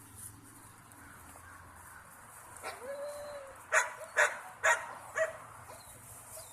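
Tiny puppy giving a short whine, then four sharp, high yips about half a second apart.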